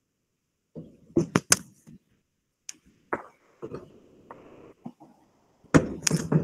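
A string of sharp clicks and knocks with some soft rustling, handling noise close to the microphone, in two louder clusters: about a second in and again near the end.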